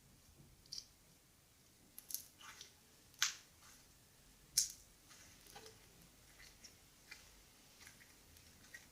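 Homemade borax slime being squeezed and pulled by hand: faint, scattered sticky clicks and pops, the two loudest a little after three seconds and about halfway through.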